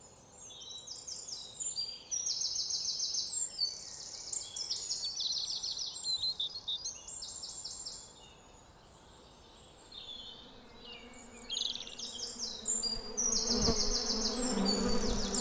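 Cartoon nature ambience: repeated high, rapidly pulsed chirping trills. From about ten seconds in, a low steady buzz of bees joins them and grows louder.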